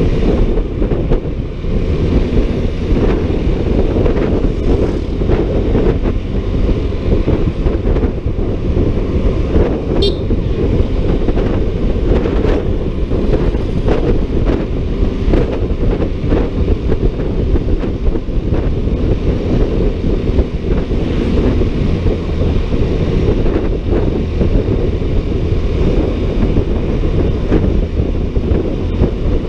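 Wind rushing over the microphone of a Honda ADV 150 scooter on the move, a steady low rumble, with road and engine noise under it.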